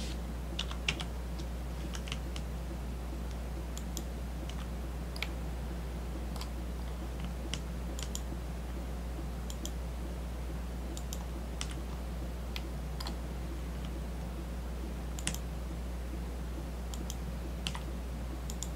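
Scattered clicks of a computer mouse and keyboard, irregular and a second or so apart, as edges are picked and a radius is typed in, over a steady low hum.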